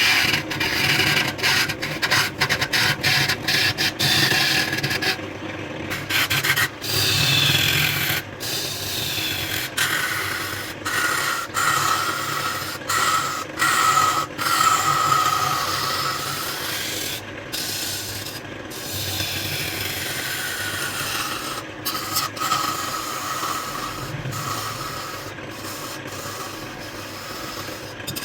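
Wood turning on a lathe: a tool scraping and cutting the spinning wood, a steady rasping hiss with whining tones that slide up and down, cutting out briefly several times.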